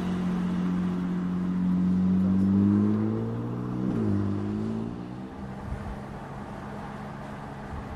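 Mercedes-AMG SLC43's twin-turbo V6 pulling under acceleration, its note rising in pitch, with a quick dip about four seconds in like an upshift before it climbs again. About five seconds in the engine note falls away, leaving quieter, steady road noise.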